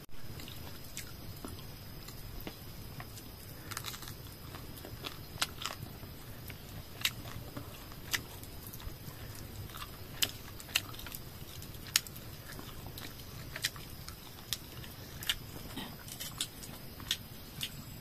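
Close-up biting and chewing on a small roasted bird, with sharp irregular crunches as the small bones and crisp skin break.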